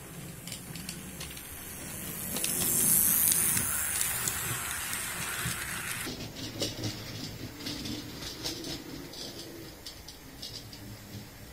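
Model railway steam locomotive running with passenger coaches: a low motor hum and wheels clicking over the rail joints, with a loud steam hiss that swells over a few seconds and cuts off suddenly about six seconds in.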